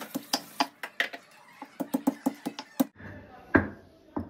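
Stone roller knocking against boiled potatoes on a stone grinding slab (sil-batta) as they are crushed: a quick run of sharp stone knocks, about three or four a second, that stops about three seconds in.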